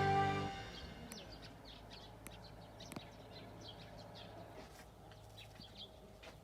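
Background music ends in the first half-second, leaving small birds chirping faintly in many short, scattered calls over a low steady hum.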